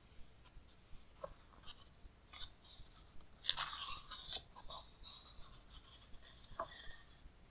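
A page of a large-format book being turned by hand: the paper rustles and crackles most about halfway through, with lighter paper clicks and crinkles before and after.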